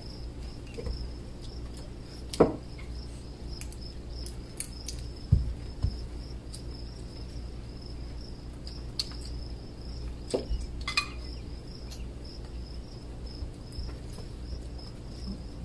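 Crickets chirping steadily, a continuous high-pitched trill, with scattered clicks and knocks of cutlery and dishes at the table.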